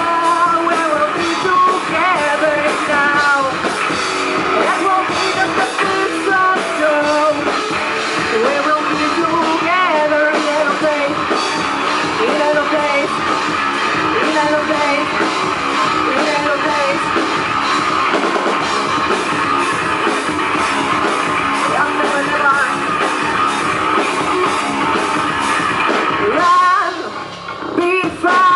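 Rock band playing live, a singer's voice over guitars and drums. The music drops out briefly near the end, then the singing comes back in.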